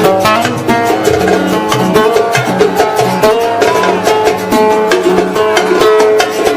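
Instrumental interlude of a live Arabic wedding song between sung verses: a plucked-string melody over steady percussion.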